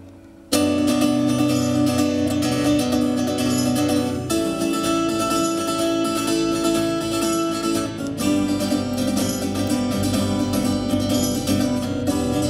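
Guitar playing chords in an instrumental break. It comes in suddenly about half a second in after a soft fading note, and the chords change about every four seconds.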